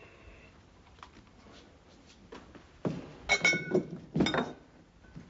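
A glazed pot being handled on a mantelpiece: a quick run of clinks and knocks of lid and pot, starting about three seconds in and lasting about a second and a half, some ringing briefly, with a few faint ticks before it.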